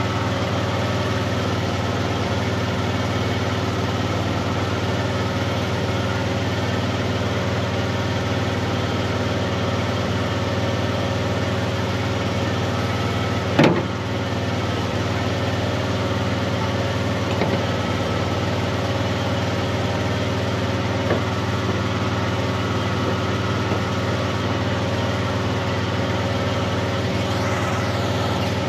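Engine of a Miller engine-driven welder running steadily at constant speed. There is a single sharp knock about fourteen seconds in.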